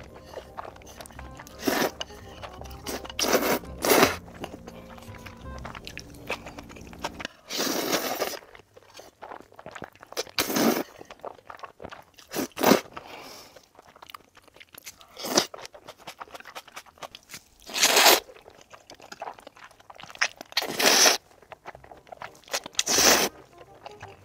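Close-miked slurping of saucy noodles: about ten loud slurps, each under a second, a second or a few apart, with quieter chewing between.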